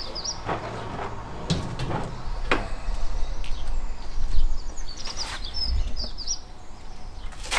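Scattered light metal clicks and knocks of a socket wrench being fitted to a nut on a thermostat housing. A small bird chirps a few times in the background near the middle.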